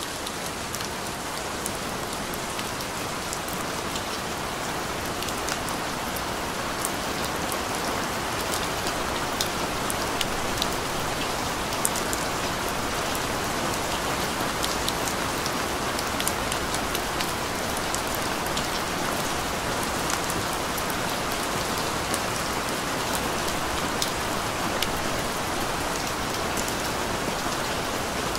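Steady rain falling: an even hiss scattered with sharp ticks of individual drops, growing a little louder over the first few seconds.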